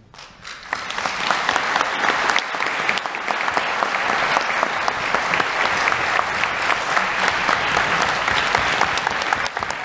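Congregation applauding. The applause builds over the first second and then holds steady.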